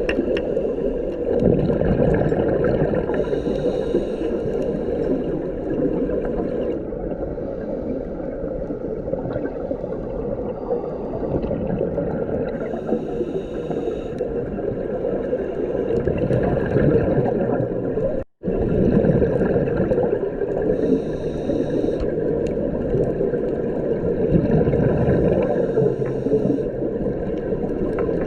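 Underwater sound of scuba diving: a steady low gurgling wash of exhaled bubbles from a diver's regulator, with a short hiss of breath every several seconds. The sound cuts out for a moment about 18 seconds in.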